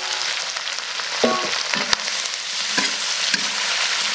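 Food sizzling in a hot, oiled iron wok while a metal spatula stirs and scrapes it, with a few sharp clinks of spatula on wok.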